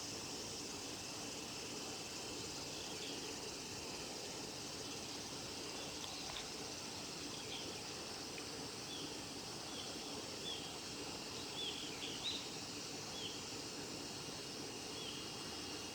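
A steady, high-pitched insect chorus, with short, separate chirping notes from a small bird scattered over it, a fraction of a second to about a second apart.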